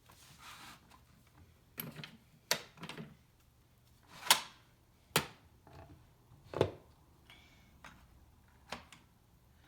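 Hard plastic toy kitchen pieces clicking and knocking as they are handled, in scattered separate taps roughly once a second, the loudest a little over four seconds in.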